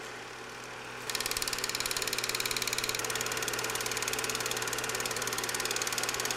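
Cine film projector running: a steady hum, joined about a second in by a rapid, even mechanical clatter.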